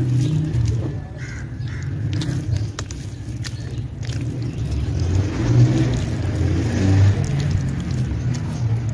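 Hands squeezing and kneading thick, wet red-dirt paste in a tub: low wet squelching and slopping that swells and fades with each squeeze, with scattered small clicks.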